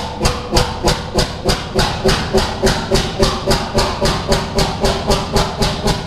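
A large slow-running engine puffing its exhaust in even, hissing chuffs, about three a second.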